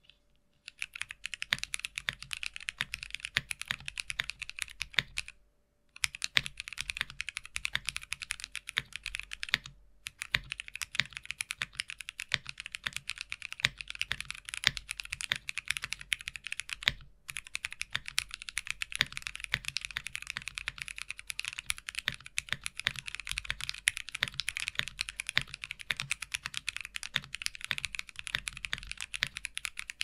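Fast continuous typing on a Luminkey65 65% custom mechanical keyboard with lubed and filmed Cotton Candy tactile switches, a PC plate, plate foam and GMK keycaps. A dense run of keystrokes starts about half a second in, with short pauses about six, ten and seventeen seconds in.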